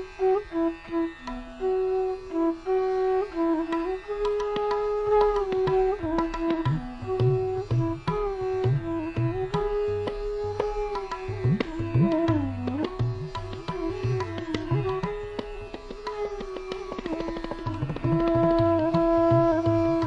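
Instrumental Indian classical music: a melody instrument plays held notes that slide between pitches over tabla drumming, with low drum strokes that bend in pitch.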